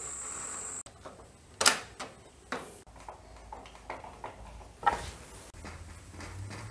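Sharp clicks and knocks of a metal door lock and handle plate being fitted against an aluminium security door frame: three separate knocks, the loudest about a second and a half in. Between them come faint small ticks of the screw and Phillips screwdriver.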